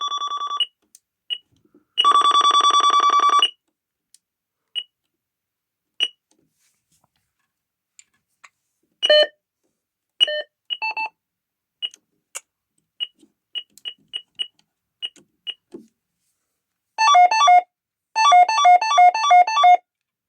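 ADE Optima Mk7 burglar alarm panel's electronic tones as codes are keyed in: a long steady buzz at the start and a louder one about two seconds in, then a string of short single keypress beeps. Near the end a loud, fast repeating chime pattern sounds.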